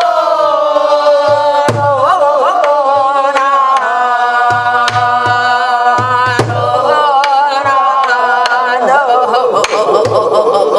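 A woman singing gueum, wordless Korean vocables that carry an instrumental-style melody, in a strong pansori voice that slides down in pitch at the start and shakes widely near the end, over her own sori-buk barrel drum: deep drum strokes and sharp clicks of the drumstick.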